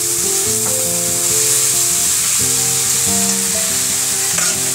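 Shredded cabbage and carrot sizzling in hot oil in a kadhai as they are stirred with a steel spatula. Background music with held notes plays along.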